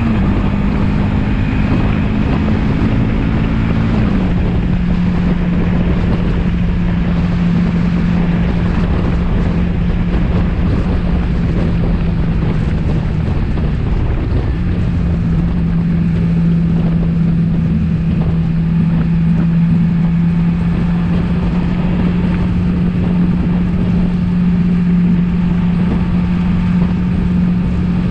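Suzuki V-Strom motorcycle engine running steadily under way, with wind rushing over the microphone. The engine note drops about four seconds in, then holds, with a brief dip about halfway through.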